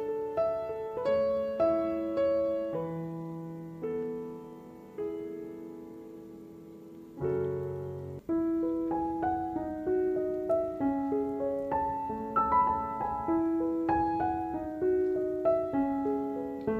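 Background piano music: a gentle melody of single notes, which thins out and fades around the middle before picking up again.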